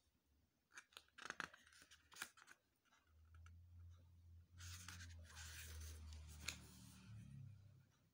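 Faint handling of a glossy paper CD booklet: a few light clicks and taps in the first couple of seconds, then the pages rustle and slide for several seconds as the booklet is opened and its pages turned.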